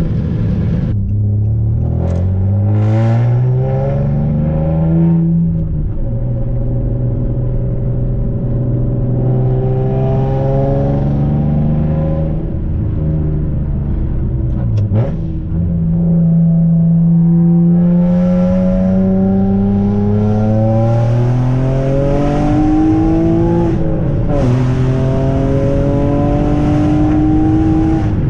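A 2009 Nissan Maxima's 3.5-litre V6 pulls through the gears of its swapped-in six-speed manual, heard from inside the cabin. The engine note climbs, then falls sharply at each of several upshifts, with a steady cruising stretch between.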